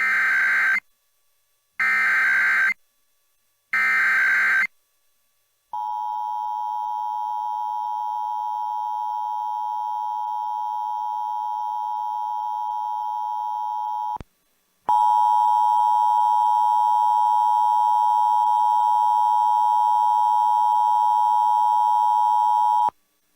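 Emergency Alert System test tones: three short screeching bursts of digital SAME header data about two seconds apart, then a steady attention tone for about eight seconds. After a brief break, a louder attention tone holds for about eight seconds more.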